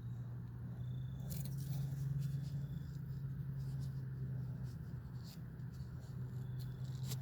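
Short scratches and clicks of small objects being handled, irregularly spaced, over a steady low hum.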